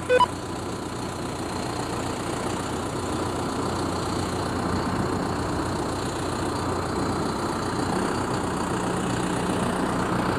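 Tractor engine running steadily, growing slightly louder, with a steady low hum joining in about eight seconds in.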